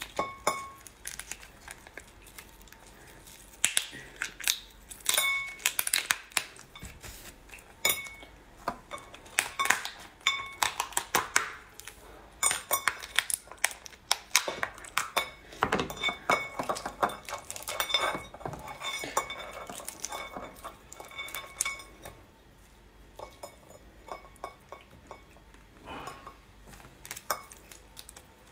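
Crab shell being pried open and the body broken apart by hand: repeated sharp cracks, snaps and crackles of shell.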